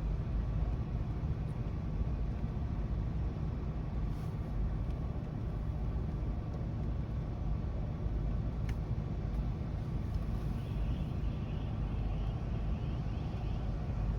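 Steady low outdoor rumble with a fainter even hiss above it, the ambience of a thunderstorm recording, and a single faint click partway through.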